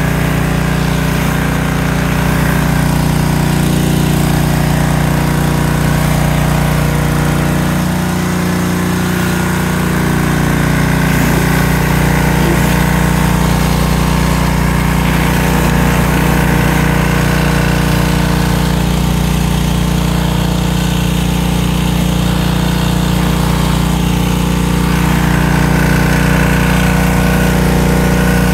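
A pressure washer's small engine runs steadily, with the hiss of water jets spraying from a 15-inch surface cleaner as it is pushed across concrete.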